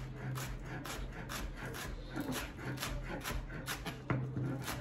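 Kitchen knife chopping scallions on a cutting board, a steady run of crisp taps at about three to four cuts a second.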